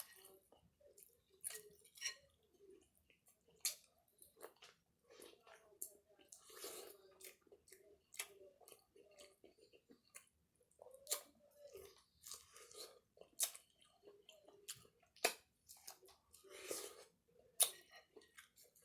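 A person chewing food with the mouth close to the microphone, with many short, irregular wet clicks from the mouth and the teeth.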